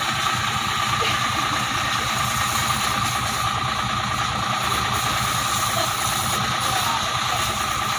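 A steady, engine-like rumble with a pulsing low note and a constant higher hum.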